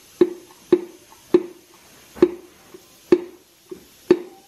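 Repeated sharp knocks, about seven at uneven intervals of half a second to a second, each with a short ring: tapping on a stuck connecting rod and piston to drive it out of a Toyota 1JZ-GTE VVT-i engine block.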